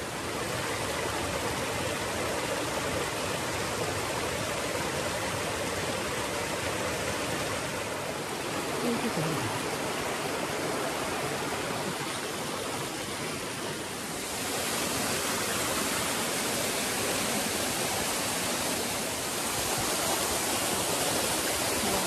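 Mountain stream rushing over rocks and small cascades. The water gets louder about two-thirds of the way in as a small waterfall comes close.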